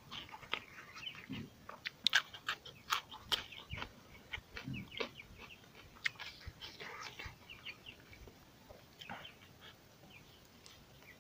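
Close-up chewing of a big mouthful of pork and rice eaten by hand, with wet smacking and clicking mouth sounds, busiest in the first seven seconds. Short animal calls sound in the background about a second in and again around six to seven seconds.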